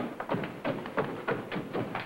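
Quick footsteps thudding down wooden stairs, a rapid uneven run of knocks, about three or four a second.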